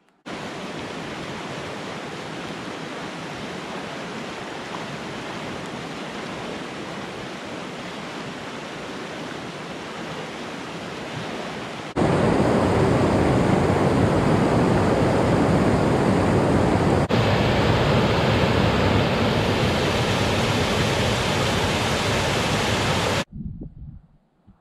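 A mountain stream rushing over rock cascades and a small waterfall, a steady rush of water. About halfway through it becomes much louder and fuller, then it cuts off suddenly shortly before the end.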